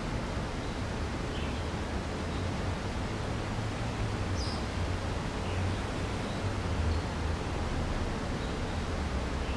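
Steady outdoor background noise with a low rumble and no vehicle passing. A few faint high bird chirps, the clearest about four and a half seconds in.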